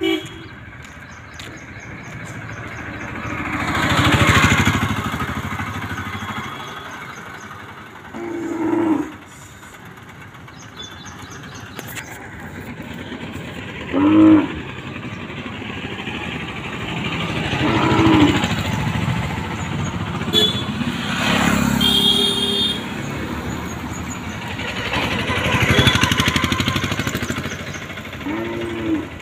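Motor vehicles on a road passing one after another, their engines rising and fading as each goes by. A few short calls that rise and fall in pitch come through between them.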